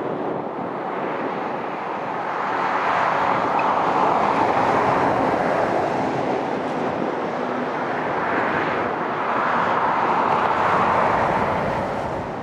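Jet airliner taking off: a steady rushing engine roar with no clear pitch, swelling twice as the aircraft passes.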